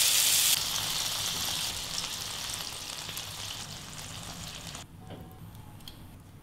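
Beef burger patties sizzling in a hot frying pan, loud at first and fading steadily until the sizzle cuts off about five seconds in.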